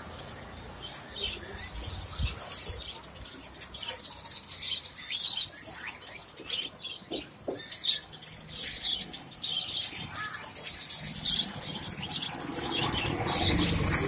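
Caged budgerigars and finches chirping and chattering, many short high calls overlapping without pause. A low background rumble grows near the end.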